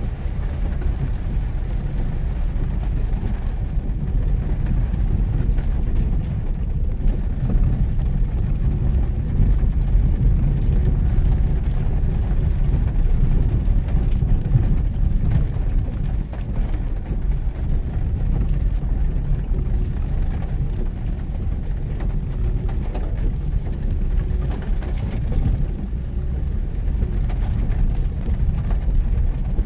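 Mitsubishi Pajero Mini driving on a wet, rain-soaked forest road: a steady low rumble of engine and tyres.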